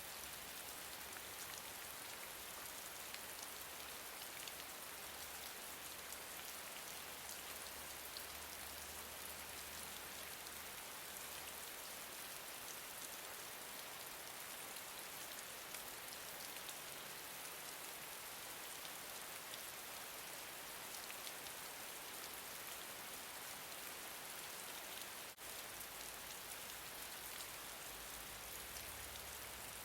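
Steady gentle rain: a dense, even patter of raindrops, with a momentary dip in level about 25 seconds in.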